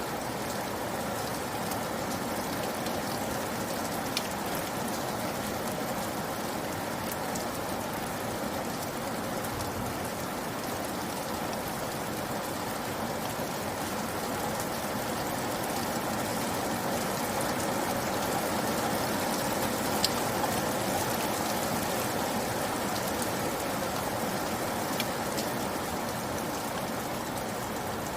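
Steady rain falling on a surface, with an occasional sharper drip standing out now and then.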